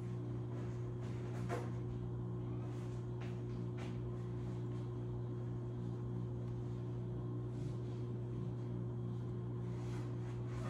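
Steady low electrical hum with a few faint clicks.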